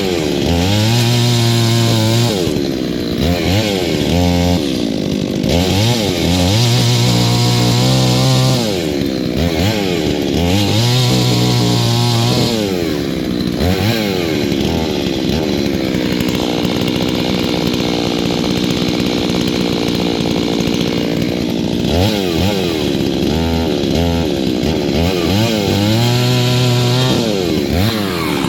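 A new Holzfforma G388 72cc two-stroke chainsaw, being run in, cutting wood. The engine revs up and drops back again and again, with a steadier, lower-pitched stretch about halfway through.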